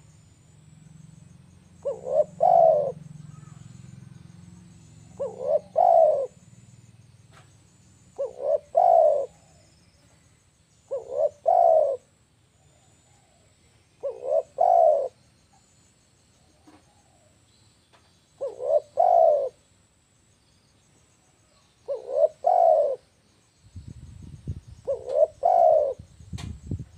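Spotted dove (tekukur) cooing: a short phrase of about three notes, repeated eight times at three-to-four-second intervals. A low rumble joins in near the end.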